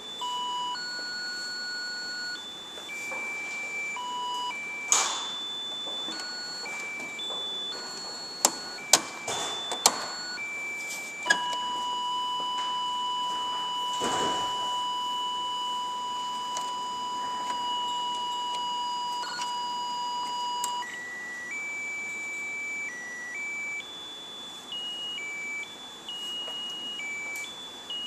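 Triadex Muse digital music sequencer playing a melody of high electronic beeping tones that jump between pitches, with a few sharp clicks in the first part. About eleven seconds in, it holds a single tone for about ten seconds, then the stepping tune resumes.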